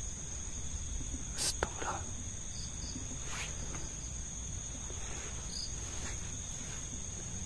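Crickets trilling steadily at one high pitch, with a few faint short sounds about one and a half and three and a half seconds in.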